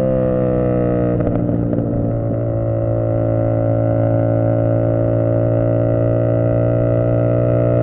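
Tuned 450ss motorcycle engine running at steady cruising throttle. Its pitch eases slightly at first, turns briefly rough and crackly about a second in, then climbs slowly as the bike pulls.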